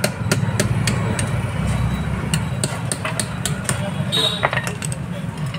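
Hammer tapping a punch against the metal top of a submersible pump motor while it is being opened up: a run of sharp metallic taps, a few a second, at uneven spacing. A steady low hum, like an engine idling, runs underneath.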